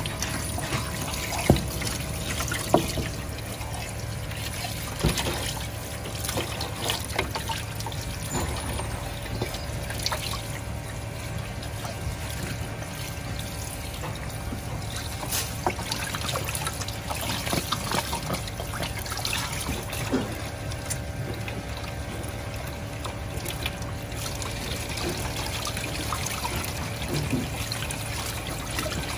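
Tap water running in a thin stream into a steel tray, splashing as hands rinse and rub raw whole chickens, with a few sharp knocks near the start.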